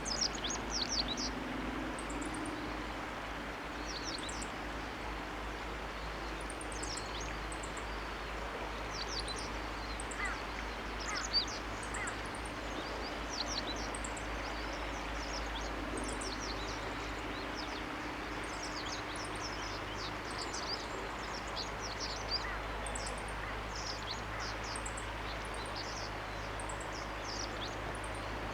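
Wild birds calling: many short, high chirps repeated at irregular intervals over a steady outdoor background hiss.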